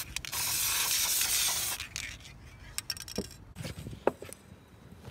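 Aerosol can of hydrographic-film activator spraying in a long hiss that stops a little under two seconds in, followed by a few light knocks and clicks.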